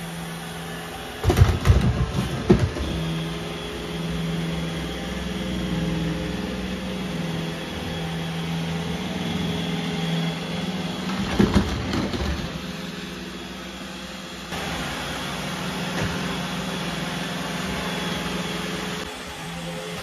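iRobot Roomba i7+ robot vacuum running as it drives along the floor, its motor and brushes giving a steady, slightly wavering hum. A few sharp knocks come about a second in and again around the middle.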